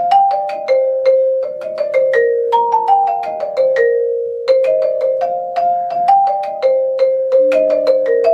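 Mallet keyboard percussion, its bars struck in a quick melodic audition passage of about four notes a second, each note ringing briefly. A falling run of notes comes through the middle, then the opening figure repeats.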